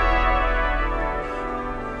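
Hymn music: sustained instrumental chords, organ-like, fading slightly in level before a choir comes in.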